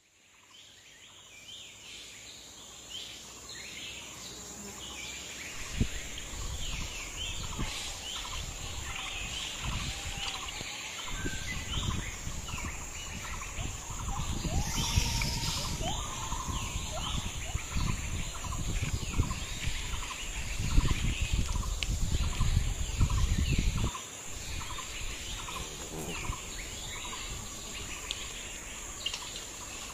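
Rural outdoor ambience: a steady high insect drone with birds chirping over and over. A low rumbling noise swells and falls through the middle, dropping away a few seconds before the end.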